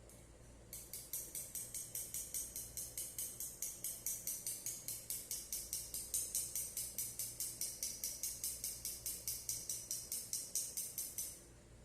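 A kitchen utensil worked rhythmically, making high, jingling strokes at about four a second. It starts just under a second in and stops shortly before the end.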